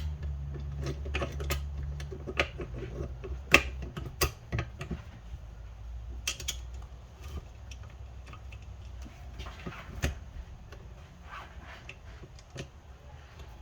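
Irregular sharp metallic clicks and clinks as gears and the reverse shift selector are handled and fitted into a Honda Civic manual transmission case, with a faint low hum underneath.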